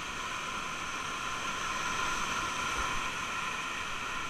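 Steady rush of whitewater rapids around an inflatable raft, a little louder about two seconds in.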